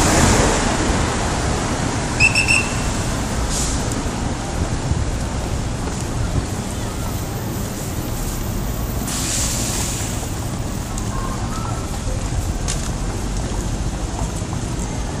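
Busy street traffic: a steady rumble of cars and buses running past. Three short high pips sound about two seconds in, and a short burst of hiss comes about nine seconds in.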